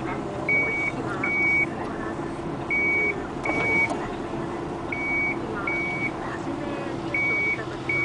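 A construction machine's back-up alarm beeping in pairs of short, high, steady-pitched beeps, about one pair every two seconds, over the steady hum of a diesel engine running.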